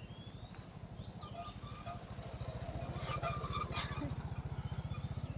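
A small engine running off-screen with a fast, even low beat that grows louder from about halfway through, with faint bird chirps over it.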